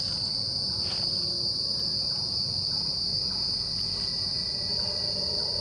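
Night-time insect chorus: a steady, high-pitched trilling that runs on without a break.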